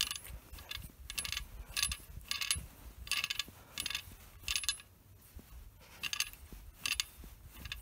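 Metal worm-drive hose clamp being worked by hand around a rubber gas hose on a brass regulator fitting: a series of short, light metallic clicks, roughly one or two a second.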